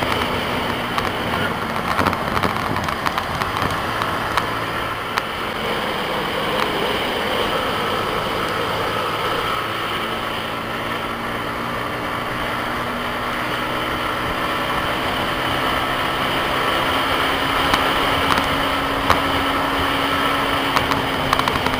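Yamaha MT-15's single-cylinder engine pulling in fifth gear at speed, its revs rising slowly through the second half, over steady wind and road noise.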